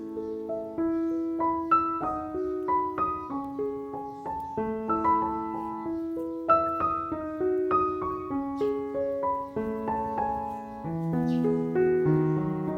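Background piano music, a gentle melody with lower notes joining near the end.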